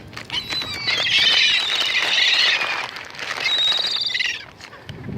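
Gulls squawking over one another as they crowd in to be fed, in a loud clamor for about two seconds. Another call follows briefly a second later.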